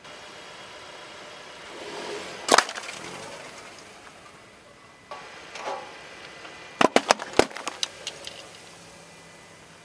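Full aluminium soda cans crushed under a car tyre on asphalt: a rising crunch ending in one loud crack as a can bursts about two and a half seconds in, then a quick run of about six sharp cracks near the middle as more cans split open.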